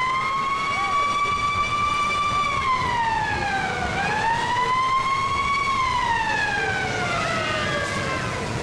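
A siren wailing, its pitch sliding slowly up and down: it holds high, falls for about a second and a half, climbs again about four seconds in, then falls steadily through the end.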